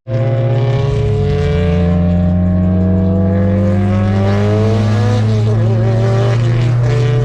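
Car engine running at a steady pitch, with higher tones above it that rise slowly and then waver for a second or so before settling.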